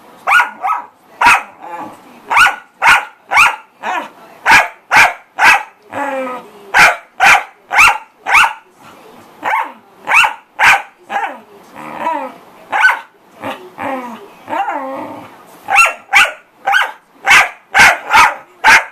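A corgi barking loudly and repeatedly while playing, roughly two sharp barks a second, broken a few times by lower growling, whining sounds that slide in pitch.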